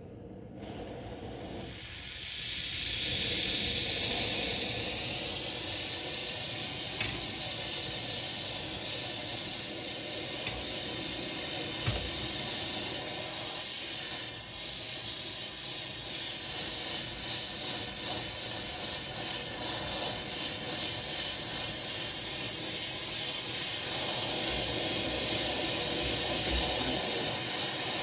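Oxyacetylene torch burning with a steady hiss. It gets louder about two seconds in, as the smoky yellow flame gives way to a blue flame. The torch is heating steel plate for bending.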